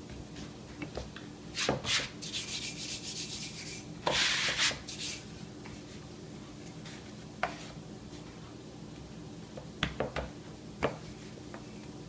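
A wooden rolling pin rolls dough on a floured wooden board while hands press the dough flat, giving rubbing and scraping strokes. A few light knocks come from the pin and hands on the board.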